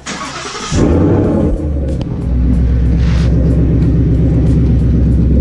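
Ford Mustang GT's 5.0-litre Coyote V8 starting with a newly installed Steeda H-pipe in place of the factory X-pipe: a brief starter crank, then the engine catches abruptly with a short flare of revs and settles into a steady idle. There is a brief hiss about three seconds in.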